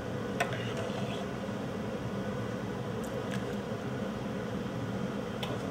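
A steel ladle scooping congee, clinking lightly against the pot and bowl a few times, over a steady background hum.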